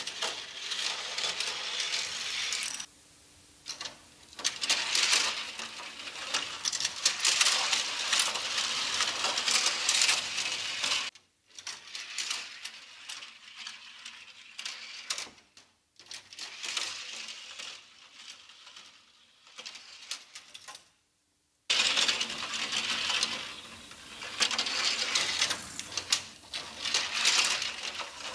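Hot Wheels die-cast toy cars rattling down the plastic ramps and spiral track of a toy parking garage. There are several runs of dense clatter, with a much quieter stretch in the middle.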